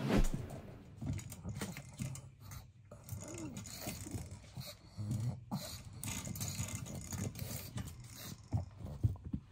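A pug pushing and squeezing against a white metal baby gate, rattling and scraping the bars with many small clinks, mixed with the dog's own noises. It opens with a short loud swoosh.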